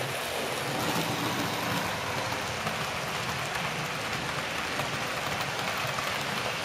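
Model train running past on its track: the steady rolling noise of its wheels on the rails and the drone of the locomotive's motor. The locomotive has no sound unit, so this is purely the train's mechanical running noise.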